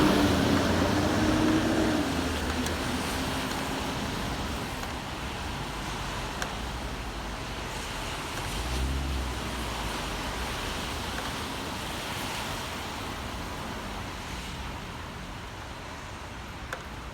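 Road traffic on a rain-wet city street, with a steady hiss underneath. A vehicle passing close fades away over the first couple of seconds, and another passes with a low rumble about halfway through.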